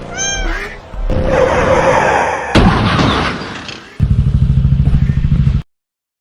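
Dramatic sound effects: a brief wavering cry, a noisy crash with a sharp impact midway, then a fast low pulsing rumble that cuts off suddenly.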